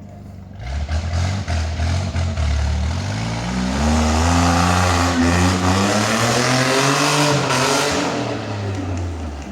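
Off-road vehicle engine revving under load: the revs are uneven at first, climb about a third of the way in, hold high with some wavering, then drop back near the end.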